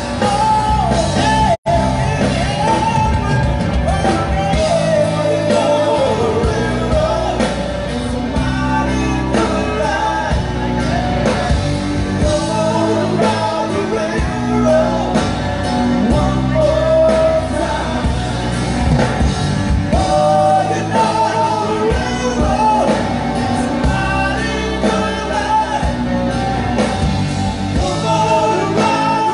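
Live rock band playing, with a lead singer over guitars, bass and drums, heard loud from the crowd. The sound cuts out for a split second about one and a half seconds in.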